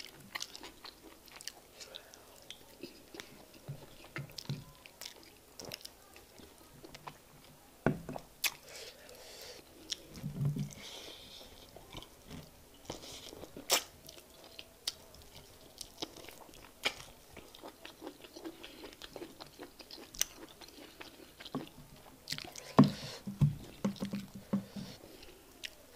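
Close-up eating sounds of egusi soup and fufu eaten by hand: wet chewing and smacking with many sharp crunchy clicks, and fingers squishing through the soup. Short low hums sound about ten seconds in and again near the end.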